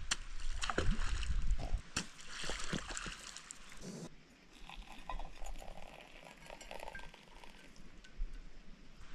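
Scattered light clinks and small splashes of water, busier and louder in the first two seconds, then fainter and sparser.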